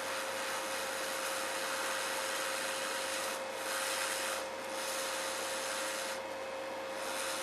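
Hot-air rework station blowing a steady hiss of air with a constant hum under it, used to heat solder on a radio circuit board; the hiss thins briefly a few times.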